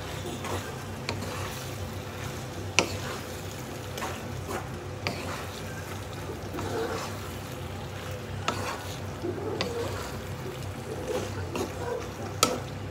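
A wooden spatula stirs and folds macaroni and meat sauce in a frying pan. A sharp knock of the spatula against the pan comes every few seconds, about five times.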